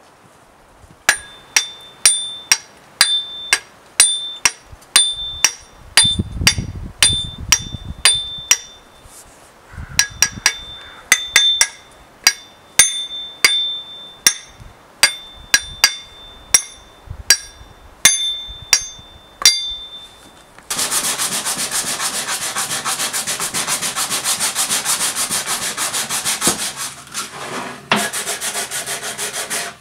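Steel axe head knocked over and over, about two ringing metallic blows a second with a short pause partway, while it is fitted to a new wooden handle. About two-thirds of the way in, an electric power sander starts and runs steadily on the wooden handle.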